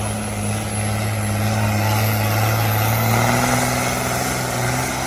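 Farm tractor engine running steadily under a broad noise, its pitch rising slightly about three seconds in.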